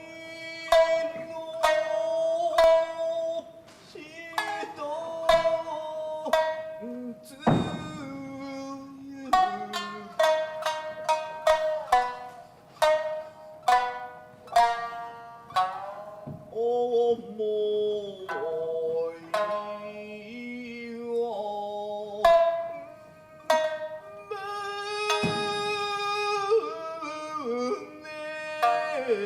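Tokiwazu music: shamisen plucking sharp, ringing notes under a chanter's long, drawn-out sung phrases. Two heavier struck accents land about seven seconds in and again near the end.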